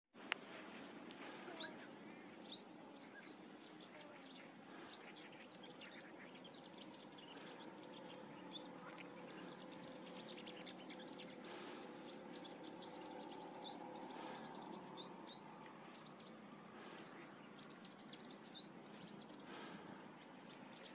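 Olive-backed sunbird singing: a busy string of high, thin chirps and quick upward-sweeping notes, coming faster and denser past the middle.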